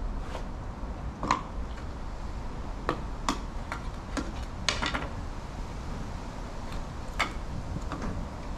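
Scattered light clicks and taps as pellets are picked from metal pellet tins and a spring air rifle is handled, about eight small clicks with a cluster near the middle, over a low rumble of wind on the microphone.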